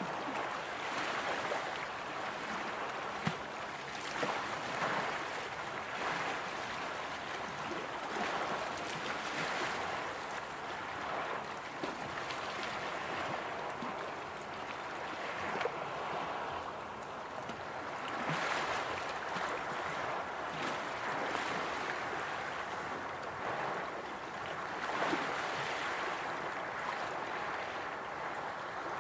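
Small waves of the Baltic Sea lapping onto a sandy, stony shore, a steady wash that swells and fades every few seconds, with a few small splashes against the stones.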